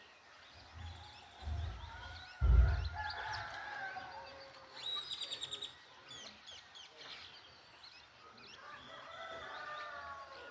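Roosters crowing, one about two and a half seconds in and another near the end, over small birds chirping, with a rapid trill of about eight notes around five seconds in. A low thump at about two and a half seconds is the loudest sound.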